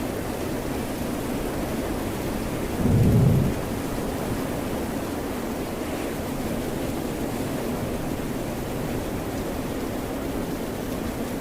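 Steady rain and ocean surf hiss without a break, with a single brief low thump about three seconds in.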